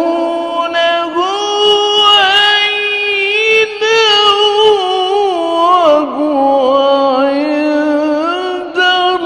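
A male Quran reciter chanting in the ornamented mujawwad style: long melismatic phrases, the voice held and turning through many small pitch ornaments, with a few short breaks between phrases.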